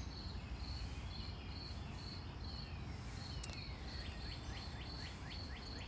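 Crickets chirping outdoors: a thin, high, even chirp about three times a second over a steady low hum. Birds chirp in a quick run of short falling notes about four to five seconds in.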